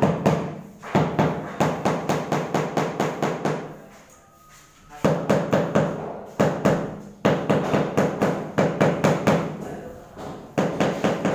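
Rubber mallet tapping a large glazed floor tile to bed it into the mortar: quick runs of dull knocks, about five a second, with a pause about four seconds in.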